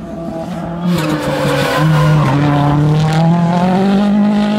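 Turbocharged RX3 rallycross car's engine running hard as the car passes close by. The pitch dips about a second and a half in, then climbs steadily as the car accelerates away.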